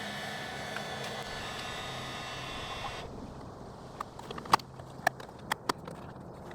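Heat gun running with a steady fan hiss and whine, switched off suddenly about three seconds in; then several sharp clicks and taps.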